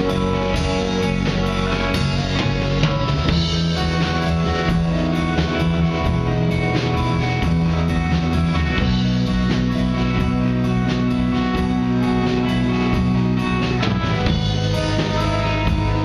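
Rock band music: electric guitars over drums, with held chords and a steady beat.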